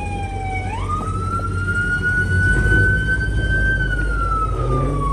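Emergency-vehicle siren wailing: one tone slides down, jumps back up under a second in, climbs slowly, then falls away again near the end, over a steady low rumble.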